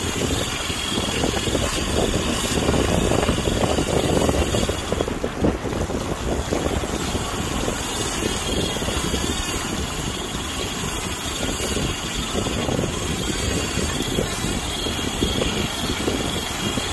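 Gulf surf breaking and washing up the beach, with wind buffeting the phone's microphone: a steady rushing noise that swells a little a few seconds in.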